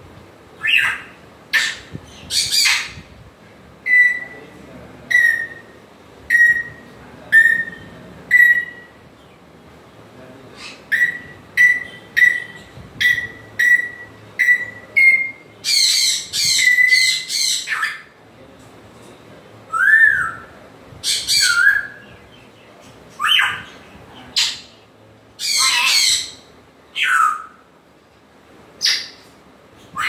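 African grey parrot calling. It gives a series of short, evenly spaced whistled notes, then harsh squawks mixed with falling whistles in the second half.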